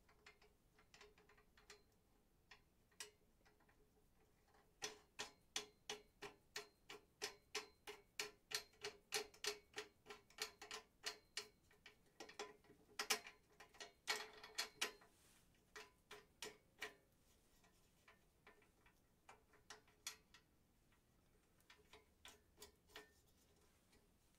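A run of light, sharp mechanical clicks from hand work on the pressure washer's frame, about two to three a second for roughly ten seconds, then a few scattered clicks.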